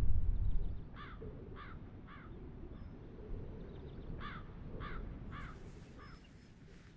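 A low rumble dying away in the first second, then crows cawing: three caws, a pause, then four more.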